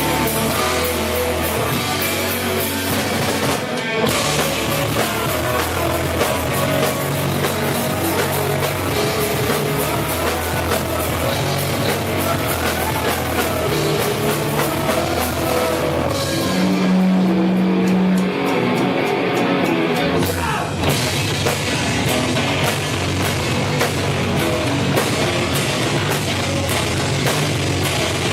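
Rock band playing loud, heavy music with a full drum kit. About sixteen seconds in, the drums and cymbals drop away for a few seconds under a held low note, and the full band comes back in near the twenty-one second mark.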